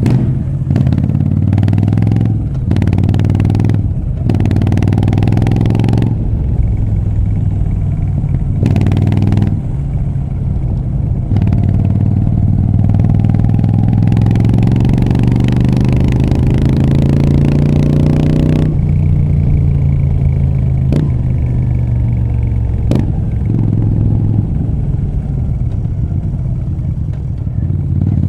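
Moto Guzzi V7 III Rough's air-cooled transverse V-twin running through Mistral short exhaust pipes while ridden: it pulls through several gears with brief dips at each shift, then climbs in pitch in one long acceleration before settling to steadier running. Two sharp clicks come near the end.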